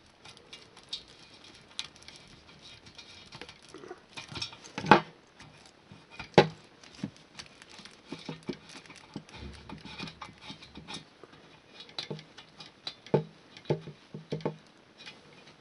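Handling noise of a moped exhaust being reassembled: scattered light clicks and metal knocks as the silencer cartridge is pushed back into the exhaust pot by hand, with two louder knocks near the middle and a few sharper taps near the end.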